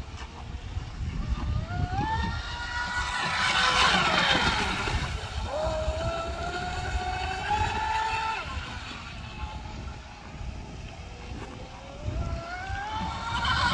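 Twin Leopard 2650 kV brushless motors of a 33-inch Cal Craft RC speedboat whining as it runs across the water. Three times the whine rises in pitch as the throttle opens, and the middle run cuts off sharply about eight and a half seconds in.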